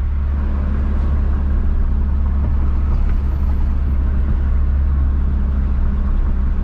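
Steady low rumble of a car's engine and road noise heard inside the cabin while driving along a street.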